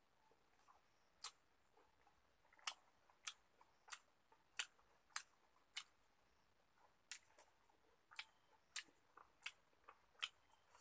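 A man chewing a mouthful of rice and curry: a run of short, sharp mouth smacks about every half second, with a brief pause a little past the middle.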